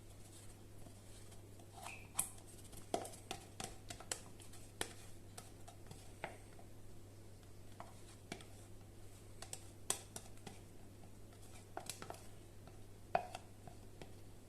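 Utensil scraping the last of a cream and egg mixture out of a mixing bowl: faint, irregular light scrapes and clicks over a low steady hum.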